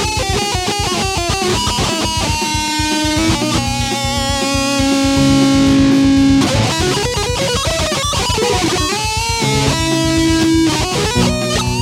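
Music with electric guitar and a fast, steady beat. Notes are held longer around the middle.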